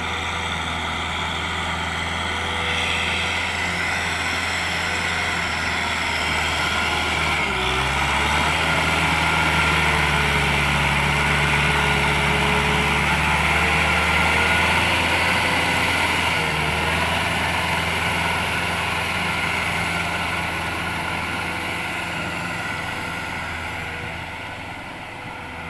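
Diesel engine of heavy farm machinery running steadily. It grows louder toward the middle and eases off near the end, and its note dips briefly twice.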